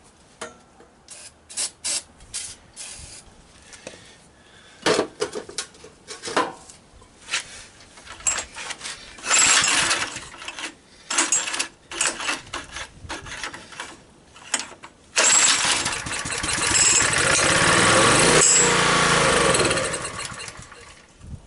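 Honda EG1400 generator being recoil-started after a shot of starting fluid. Short pulls and clatter come first, then near the end the engine runs for about five seconds and dies away, which the owner takes as a sign that it is not getting gas.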